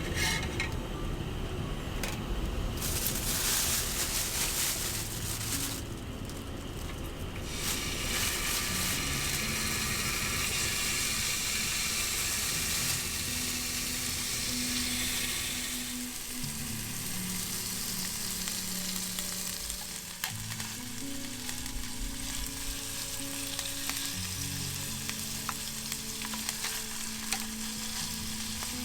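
Meat sizzling as it fries on a hot pan, a steady spitting hiss with a few small clicks. Soft background music plays underneath.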